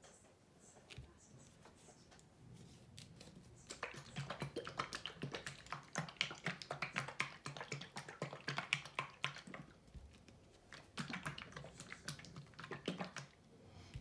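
Rapid, irregular light clicking and tapping of small hard objects in two spells: one starting about four seconds in and lasting some five seconds, a shorter one near the end.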